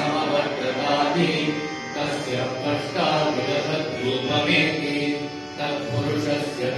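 Indian devotional music: chanting or singing voices over instrumental accompaniment, continuous and steady.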